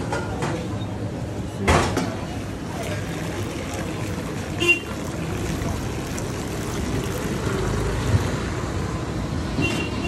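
Busy street traffic noise with short horn toots about five seconds in and again near the end, and a sharp knock near two seconds in.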